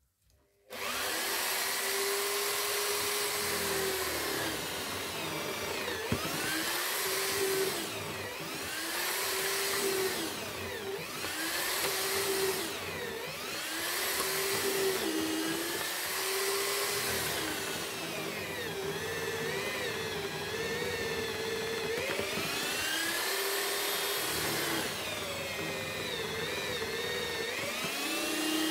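Corded electric drill mounted in a homemade lever-operated mortising jig, switched on about a second in and then running continuously. Its pitch sags each time the bit is plunged into the timber to bore a mortise and recovers as it is lifted, repeatedly, roughly every two seconds.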